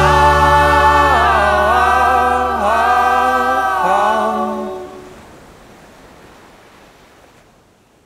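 Closing music: a held, choir-like chord of wordless voices over a sustained low bass note, shifting chord a few times, then fading out over the last few seconds.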